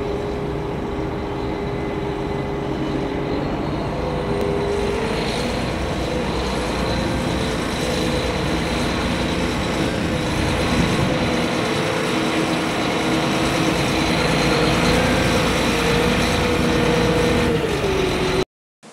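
John Deere 8360RT track tractor's diesel engine running as the rubber-tracked tractor drives over tilled ground, growing gradually louder as it comes closer. The engine note steps up in pitch about four seconds in, holds steady, and drops just before the sound cuts off abruptly near the end.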